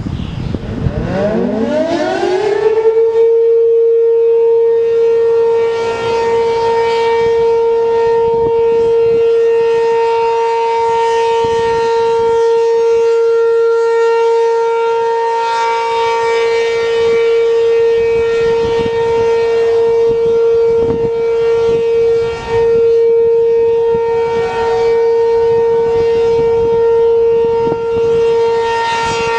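ACA P-15 outdoor warning siren winding up, its pitch rising over the first two and a half seconds, then holding one steady tone for the alert signal of a siren test.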